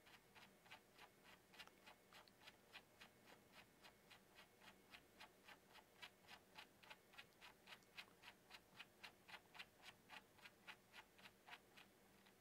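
Faint, evenly spaced clicking of the Roland VR-1HD mixer's VALUE knob detents, about four clicks a second, as the knob is turned step by step to lower a menu value; the clicks stop shortly before the end.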